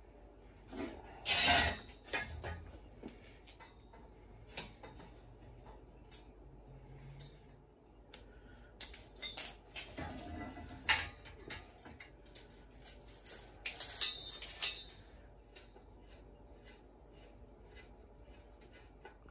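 Lengths of copper pipe and bends clinking and knocking against each other and the floor as they are handled, with scattered scrapes and rustles. The loudest bursts come about a second and a half in and again around fourteen seconds.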